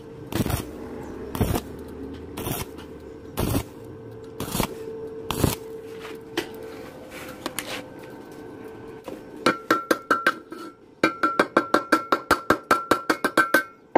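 Stick welding arc on thin 0.7 mm square steel tube, struck in short bursts about once a second, the on-off way of keeping thin metal from burning through, over a steady hum. From about nine and a half seconds, rapid metallic tapping with a ringing tone as a chipping hammer knocks slag off the fresh weld on the hollow tube.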